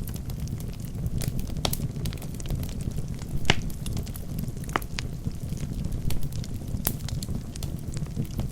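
Wood fire burning in a fireplace: a steady low rumble of flames with irregular sharp crackles and pops from the logs, several a second, one louder pop about three and a half seconds in.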